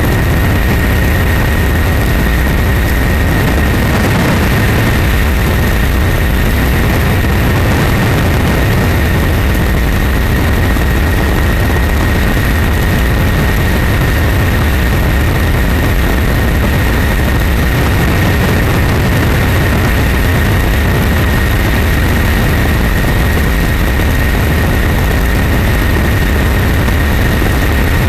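Loud, steady engine noise that does not change, with a constant high whine running over it.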